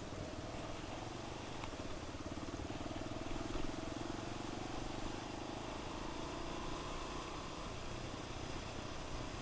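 Suzuki DR enduro motorcycle's single-cylinder four-stroke engine running steadily under way at moderate revs, the pitch rising slightly over the middle seconds and easing near the end.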